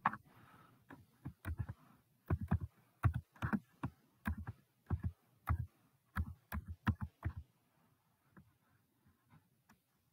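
Close, irregular taps and clicks, each with a dull thud, about three a second: fingers working the device that is recording, stopping about seven seconds in.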